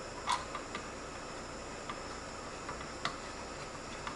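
A few light, scattered clicks and taps as the screws holding a CPU water cooler's block are loosened, over a steady faint hiss. The loudest click comes just after the start.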